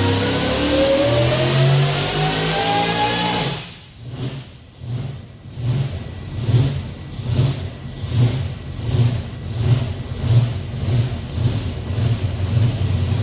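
Supercharged 60-over 454 big-block V8, with a Littlefield 8-71 blower and running on E85, at the top of a dyno pull: it runs loud with its pitch rising, then the throttle closes about three and a half seconds in. It drops to a rough idle with an uneven beat about twice a second.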